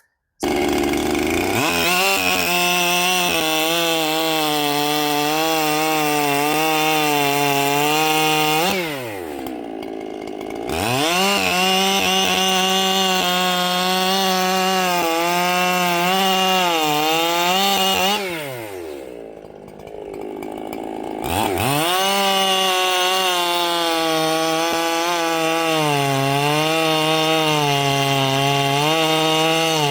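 Ported Echo CS-7310 two-stroke chainsaw with a 24-inch bar cutting through logs at full throttle, its pitch wavering under load. It drops to idle twice between cuts, about 9 and 18 seconds in, then revs back up.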